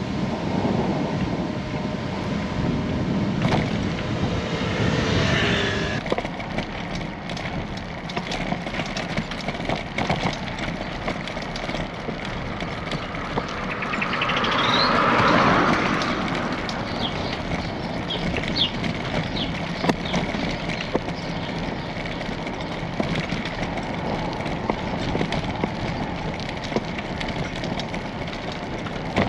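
Wind buffeting the microphone and the running noise of a moving bicycle, steady throughout. About halfway through a sound swells up, rising in pitch, then fades away.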